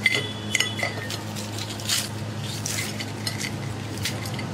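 A knife and kitchen scissors cutting through the crisp crust of fried chicken on a china plate. Metal clinks and rings against the plate at the start, then short crackles of the crust come throughout, over a steady low hum.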